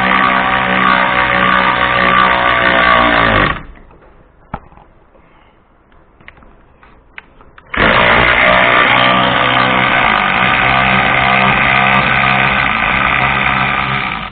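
Cordless 3/8-inch electric ratchet running: the motor and gearing run loud and steady, wind down and stop about three and a half seconds in, and after a few light clicks run again for about six and a half seconds before cutting off suddenly.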